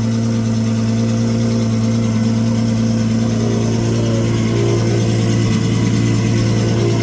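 Ferrari 812 GTS's 6.5-litre naturally aspirated V12 idling at the exhaust with a steady, even note, with no revving.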